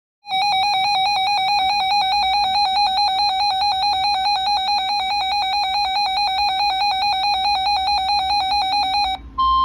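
A weather alert radio's alarm sounding for a severe thunderstorm warning: a loud, fast two-pitch electronic warble for about nine seconds. It cuts off, and near the end the broadcast's steady 1050 Hz NOAA Weather Radio warning tone begins.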